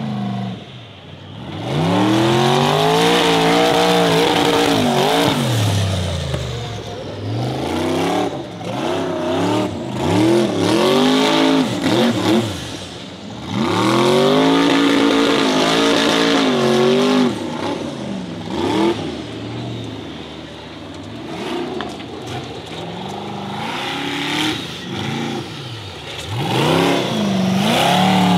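Formula Offroad hill-climb buggy's engine revving hard under load as it climbs a steep gravel slope. The revs sweep up and fall back again and again as the throttle is worked, with a few brief lifts off the throttle.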